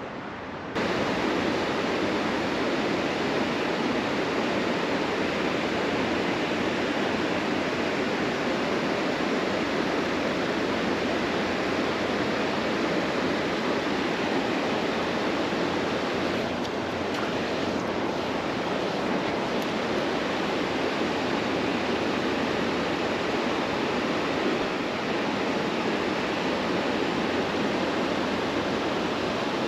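Steady rush of flowing creek water, stepping up in level about a second in.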